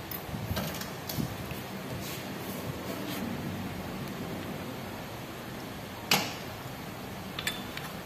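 Light metallic clicks and taps of a hand tool against the exposed parts of a motorcycle engine's open clutch side, with one sharp clink about six seconds in and two smaller ones near the end.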